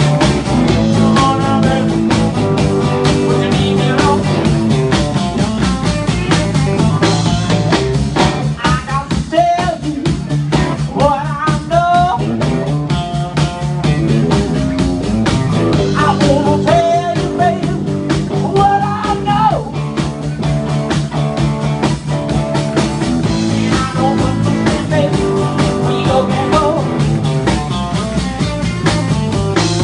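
Live blues-rock power trio playing: an electric guitar lead with bent, wavering notes over electric bass guitar and a drum kit.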